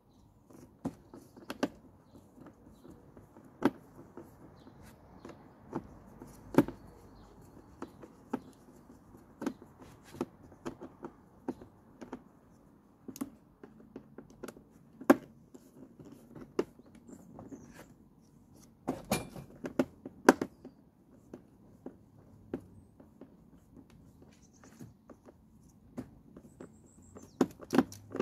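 Irregular light clicks and knocks of a hand tool on screws and the plastic fan cover of a Flymo hover mower as the cover's screws are undone.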